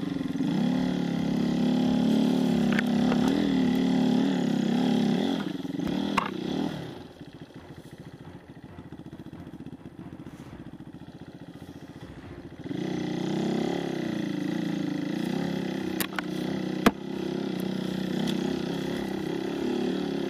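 Enduro dirt bike engine revving hard under load, its pitch rising and falling. It drops to a quieter running for several seconds in the middle, then comes back loud. Two sharp knocks sound a few seconds before the end.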